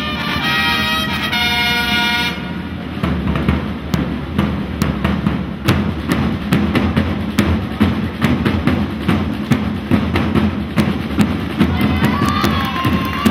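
Flag-wavers' band playing: brass horns hold a chord for about the first two seconds, then drums beat a steady, quick rhythm.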